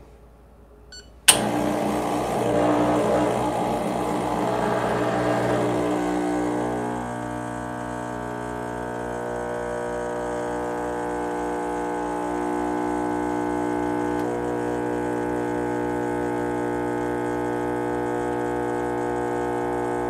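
Rancilio Silvia espresso machine's vibratory pump switching on with a click about a second in, then buzzing steadily while an espresso shot is pulled. The buzz is rougher for the first several seconds and settles into an even hum about seven seconds in.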